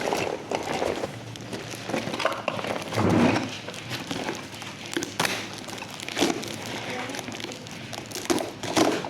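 Packaging being opened and handled: crinkling wrapping with scattered clicks, knocks and thumps, one louder bump about three seconds in.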